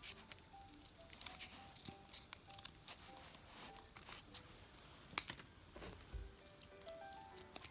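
Soft background music, with small clicks and crinkling rustles from hands unpacking bracelets and their packaging, and one sharp click about five seconds in.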